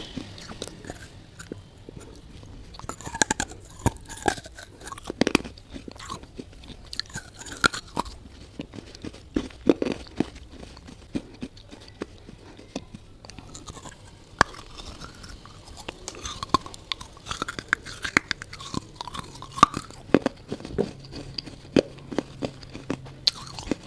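A person biting and chewing hard, brittle mineral pieces, with irregular sharp crunches several times a second and softer mouth sounds between.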